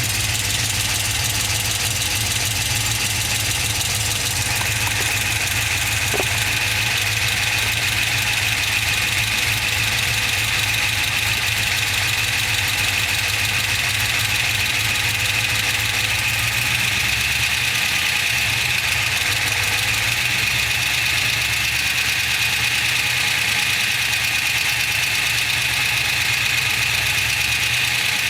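GM LS2 6.0-litre V8 idling steadily with a ticking noise from the engine.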